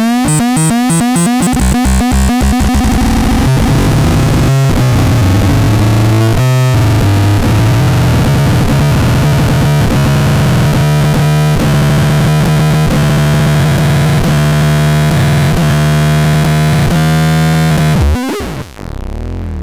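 ABSURDON ML6 electronic noise synthesizer: harsh, dense synth tones that first glide upward and stutter in rapid pulses, then settle into a low steady drone under fast rhythmic chatter. The sound cuts off abruptly near the end.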